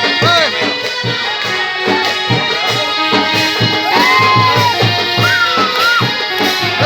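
Background music with a steady beat and a melody of held and sweeping notes.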